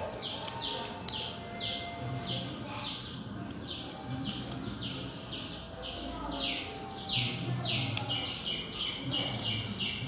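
A bird calling over and over in a quick run of short, falling notes, about three a second, with a few light clicks near the start.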